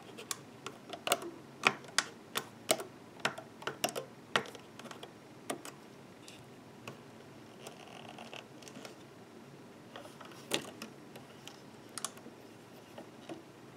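Small sharp clicks and taps of a loom hook, rubber bands and fingertips working a clear plastic rubber-band loom, as bands are pulled over the pegs and pressed down. The clicks come in a quick run for the first few seconds, then more scattered.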